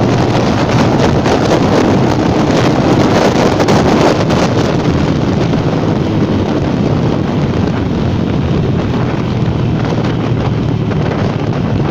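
Wind rushing over the microphone of a moving KPR 200 motorcycle, with the bike's engine running underneath, steady throughout.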